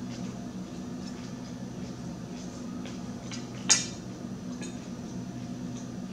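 Metal fork picking through salad on a plate, with faint taps and one sharp clink of the fork against the plate a little past halfway. A steady low hum runs underneath.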